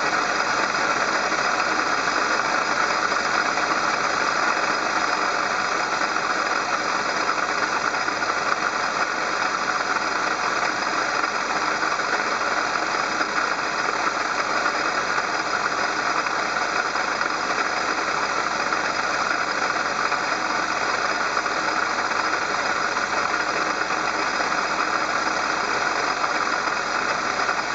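Car engine running, heard in the engine bay, with a steady abnormal noise coming from a failing water pump.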